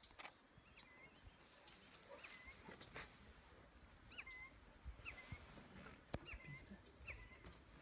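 Near silence with faint outdoor wildlife sounds: short repeated chirps, about two a second in the second half, over a soft pulsing high trill, with a few faint clicks.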